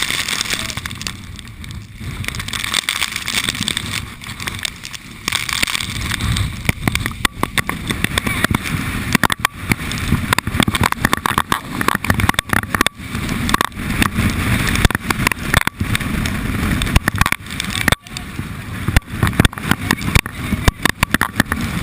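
Strong storm wind buffeting the microphone with a loud rushing roar, broken by rapid crackling ticks and knocks that come thicker after the first few seconds.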